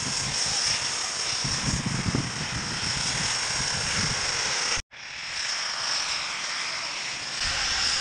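Steady rushing wind on a GoPro's microphone while riding downhill, mixed with the hiss of sliding over snow. It cuts out abruptly for an instant about five seconds in, then goes on.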